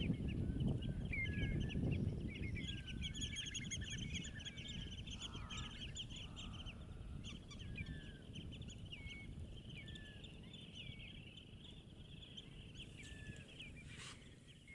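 A flock of birds calling constantly, with many overlapping short, high chirps and whistles, over a low rumbling background noise that is heaviest in the first few seconds. There is one sharp click near the end.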